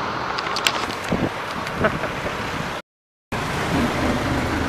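Street traffic noise with a few short clicks, cut off by a half-second dropout, then a jeepney's engine running with road noise, heard from inside the open passenger cabin.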